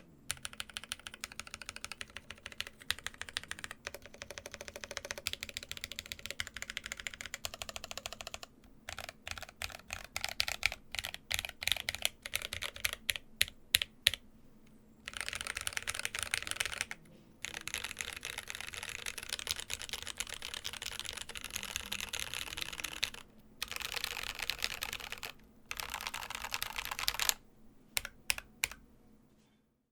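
Custom mechanical keyboard with Koala tactile switches on an aluminium plate and ePBT keycaps, sharp plastic key clicks with no dampening. At first the keys are pressed one after another; from about 8 seconds in the presses come more spaced out and louder, as modifier keys are tried. From about 15 seconds in, four bursts of rapid key mashing across the board follow, ending in a few single clicks.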